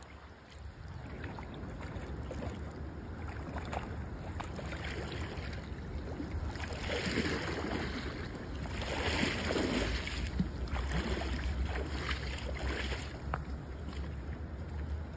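Wind rumbling on the microphone over the rush of a flowing stream, with two louder swells of rushing noise about seven and nine seconds in.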